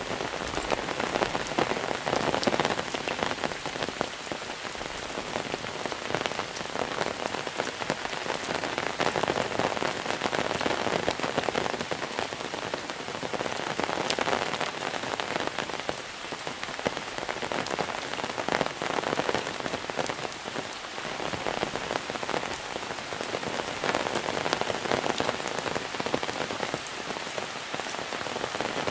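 Steady heavy monsoon rain falling, a dense patter of drops that swells and eases slightly but never stops.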